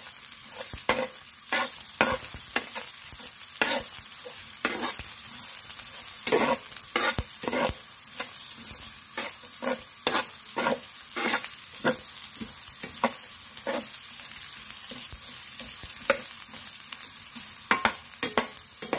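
Onion, garlic and ginger sizzling in hot oil in a honeycomb-textured nonstick frying pan, with a metal spatula scraping and knocking against the pan in irregular strokes as they are stirred.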